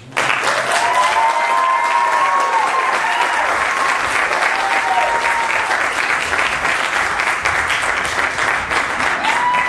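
Audience applause that breaks out suddenly and stays steady, with a few long, rising-and-falling whoops from the crowd.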